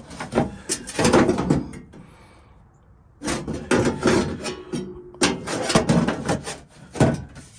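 Sheet-metal replacement floor pan being handled and set against the car's floor: a run of clunks and scraping metal, a pause, then a longer run of clunks and scrapes.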